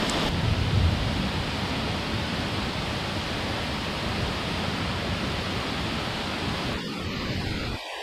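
Steady rushing of a waterfall, heard as an even roar of falling water.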